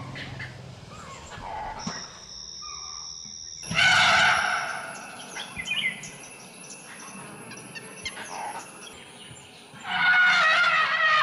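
Asian elephants trumpeting: a loud blast about four seconds in and a longer, wavering one from about ten seconds on, calls of a herd alarmed by a tiger close by.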